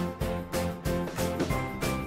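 Background music with a steady beat and bright pitched notes.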